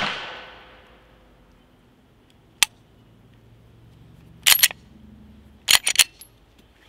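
Glock 19X 9mm pistol being cleared of a jam by hand: a click, then two quick clusters of sharp metallic clacks as the slide is worked and racked. The jam comes from a weak grip on the pistol. The echo of the preceding shot fades away in the first second.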